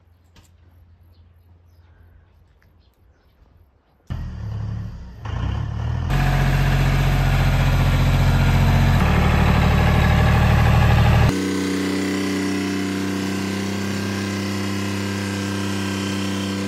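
Faint small ticks at first, then about four seconds in a farm tractor's diesel engine comes in loud and runs steadily as its front loader carries a one-tonne bulk bag. Its tone shifts abruptly a few times.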